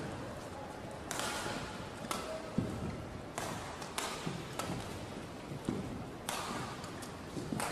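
Badminton rally: a string of sharp, crisp racket strikes on the shuttlecock, roughly one a second, with short low thuds of players' footfalls on the court between them, over a steady hall murmur.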